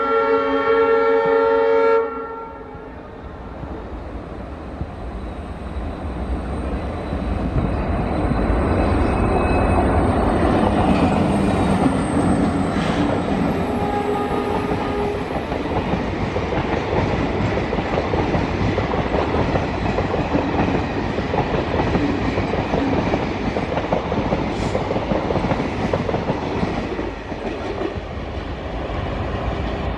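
Diesel locomotive horn sounding one loud chord for about two seconds, cutting off sharply. Then a passenger train hauled by two diesel locomotives passes: engine rumble and wheels clattering over the rails, loudest around ten seconds in and running on as the train moves off.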